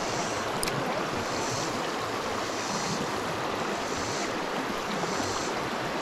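Creek water running steadily, a continuous rush. A fainter high hiss comes and goes about every second and a half, and there is one light click under a second in.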